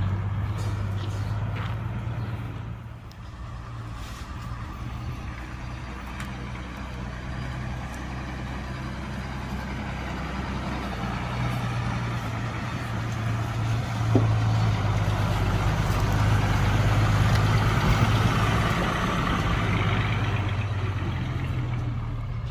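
Heavy construction machine's diesel engine running steadily, growing louder and busier after a short knock about halfway through, then easing off near the end.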